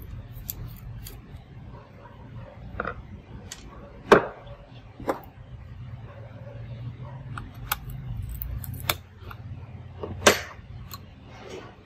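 Scattered sharp clicks and knocks of a screwdriver and small parts handled during laptop disassembly, the two loudest knocks about four seconds in and about ten seconds in.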